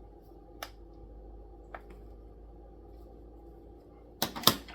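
Hard plastic parts of a toy RC car and its transmitter being handled: a sharp click about half a second in, a fainter one a little later, then a quick cluster of louder clicks and knocks near the end, over a faint steady hum.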